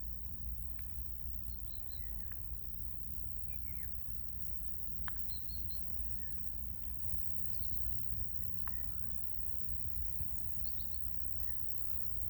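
Steady low rumble of outdoor background noise, with scattered short high chirps of small birds and a few sharp clicks throughout.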